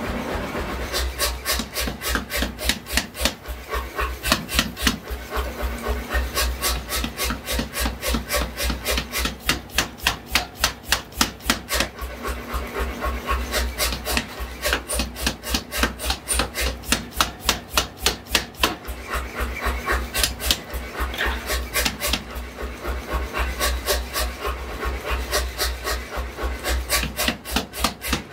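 Power hammer striking a white-hot steel billet in a fast, even run of blows, about four a second, pausing briefly now and then, over a steady low hum.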